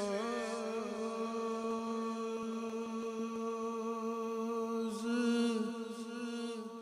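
Male naat reciter singing one long held note, unaccompanied by instruments, that wavers at first and then settles, with a new phrase beginning about five seconds in. A second voice holds a steady low drone beneath.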